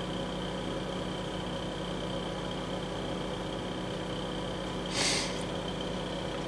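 A steady background hum like a fan or other small machine, with a short hiss about five seconds in.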